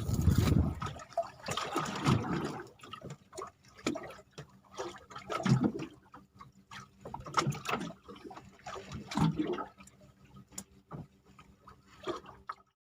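Water splashing and sloshing in irregular bursts, over a faint steady hum. The sound cuts off near the end.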